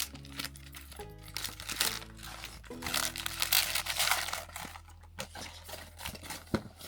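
Background music with sustained notes, over crinkling and tearing of blind-box packaging, loudest in the middle, with a sharp crack near the end.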